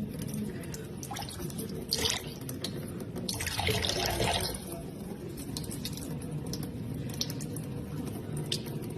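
Water splashing and dripping, with small irregular clicks and a louder gush about three and a half seconds in.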